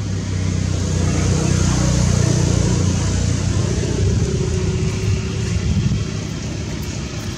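A motor vehicle engine running steadily with a low hum, growing louder about a second in and easing off near the end.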